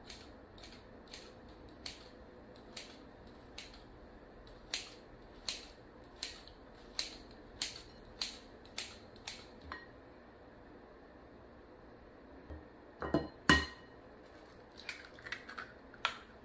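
Kitchen scissors snipping noodles in a glass mixing bowl, a sharp click with each cut, about one snip every two-thirds of a second. After a pause come two sharp knocks of an egg being cracked against the glass bowl, with a short glassy ring. These are the loudest sounds, and a few lighter clicks follow near the end.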